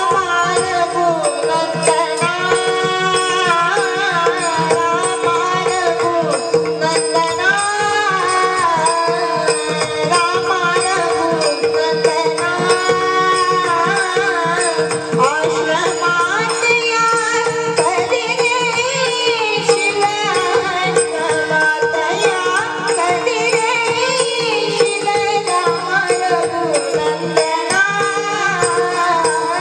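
A girl's voice singing a Marathi devotional bhajan in raga Bhairavi, in long ornamented gliding lines, over a steady drone and tabla.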